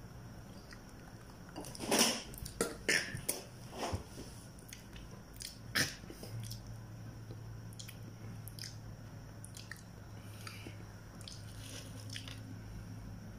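A person biting into and chewing something crunchy close to the microphone: a run of sharp crunches between about two and four seconds in, another near six seconds, then softer, sparser chewing.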